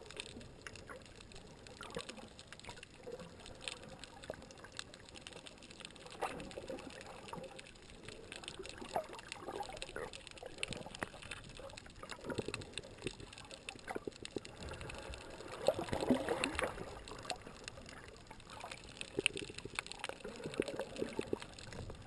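Muffled underwater sound picked up by a GoPro in its waterproof housing just below the surface: water sloshing and swirling, with scattered small clicks and crackles. The sloshing swells twice, about two-thirds of the way in and near the end.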